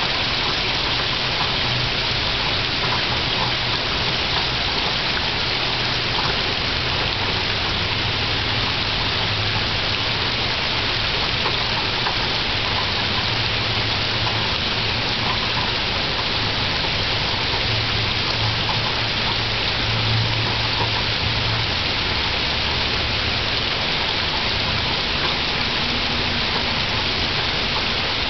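Gentle rain falling steadily on tree leaves and leaf-covered ground, an even hiss with faint scattered drop taps and a low rumble underneath.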